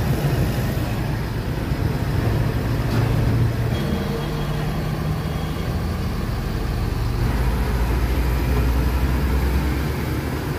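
Diesel truck engine running at road speed with tyre and road noise, heard from inside the cab. The engine note deepens about seven seconds in.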